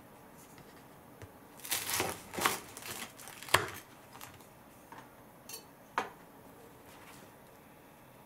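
A kitchen knife crunching through the crisp toasted crust of a sandwich for about two seconds, ending in a sharp knock of the blade on a wooden cutting board. A single sharp tap follows a couple of seconds later.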